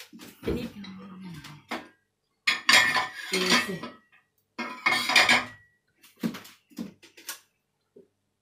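Plates and a stainless steel saucepan clattering, with two loud bouts of clatter in the middle, then a few lighter clinks of a spoon against the pan.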